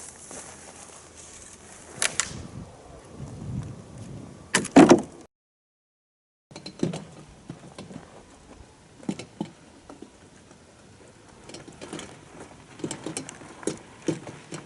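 Scattered knocks and bumps, with a louder knock about five seconds in, followed by about a second of dead silence and then more light knocks and clicks.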